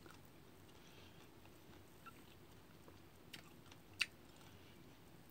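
Quiet mouth sounds of a person chewing fresh cut fruit, with a few short sharp clicks, the loudest about four seconds in.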